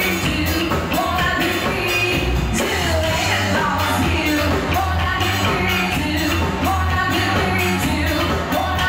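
Live pop band playing: women singing into microphones over drums with a steady beat, bass and electric guitar.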